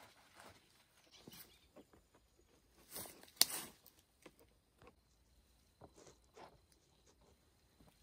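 Rustling in dry leaves and forest undergrowth, with scattered twig snaps and light knocks as sticks are handled. The sharpest snap comes about three and a half seconds in.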